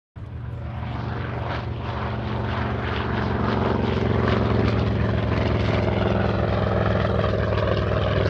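SAAB B17's radial piston engine and propeller running steadily, cutting in suddenly and growing louder over the first few seconds.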